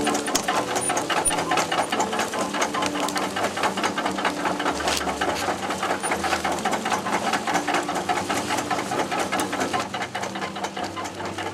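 Belt-driven tobacco sewing machine running, its stitching mechanism clattering fast and evenly as it sews fresh tobacco leaves onto string for drying.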